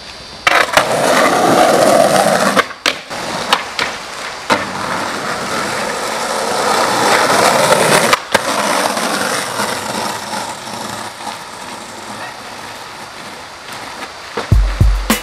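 Skateboard wheels rolling on rough asphalt, broken by a few sharp clacks of the board hitting the ground. Near the end, music with a heavy bass-drum beat comes in.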